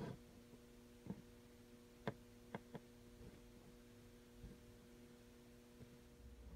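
Near silence: a faint steady electrical hum, broken by about six soft clicks and taps, the loudest about two seconds in.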